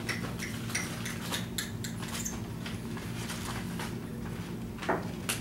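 Metal spatula scraping and clicking against a small metal cup while scooping out thick silicone, with a couple of sharper ticks near the end.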